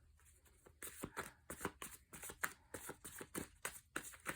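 A worn oracle card deck being shuffled by hand: a quiet run of irregular card flicks and rustles, several a second, starting about a second in.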